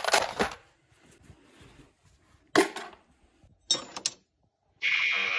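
Loose metal hardware rattling in a plastic organizer drawer as a hand rummages through it, then short separate clinks of metal cutlery being picked through. A steady pitched tone starts near the end.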